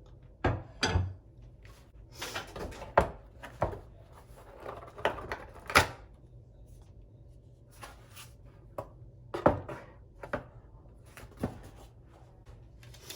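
A heavy hair-dryer stand and its packaging being handled: irregular knocks and clicks, with a couple of low thumps about half a second to a second in.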